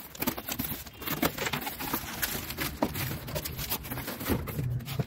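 Packaging being handled: rustling and crinkling of plastic wrap and cardboard, with many light clicks and knocks, as plastic-wrapped mixer jars are lifted out of a cardboard box.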